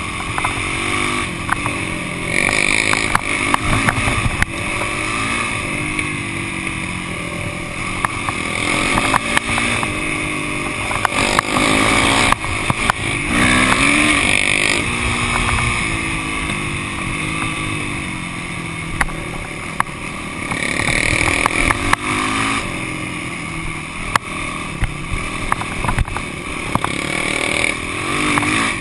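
Yamaha YZ450F's four-stroke single-cylinder engine running while riding on a rough dirt road, the revs rising and falling again and again with throttle and gear changes, with occasional sharp knocks.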